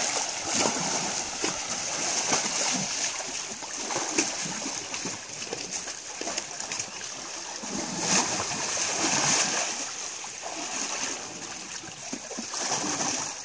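An Asian elephant wallowing in a muddy pool, sloshing and splashing the thick muddy water as it rolls and shifts its body. A louder splash comes about eight seconds in.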